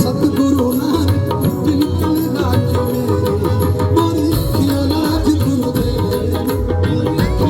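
Live Punjabi folk band music: a wavering melody line over steady bass and percussion.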